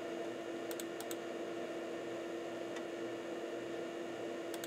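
Computer mouse button clicks: four quick clicks about a second in and two more near the end. They sit over a steady electrical hum.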